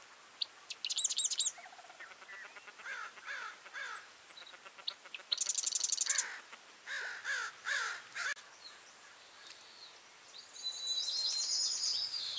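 Several birds calling and singing over otherwise calm quiet. There are short, high, rapid trills about a second in, again around five and a half seconds, and near the end, with a run of lower, repeated down-slurred notes in between.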